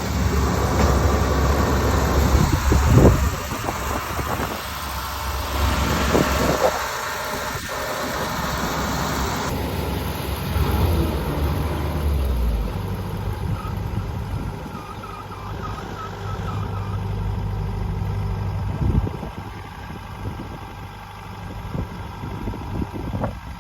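Engine of a farm machine running steadily with some mechanical clatter. About ten seconds in it drops back to a quieter, lower idle.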